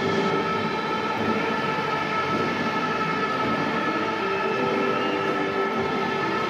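Ice hockey arena crowd in uproar: a loud, steady din with several sustained horn-like tones held over it, angry fans protesting the referees.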